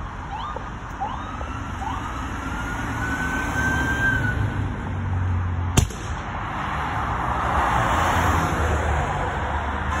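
A siren sounding in a few short rising whoops and then one long, slowly rising wail, over the low rumble of highway traffic. About six seconds in comes a single sharp pop, the loudest sound, and then the noise of a vehicle passing close swells up.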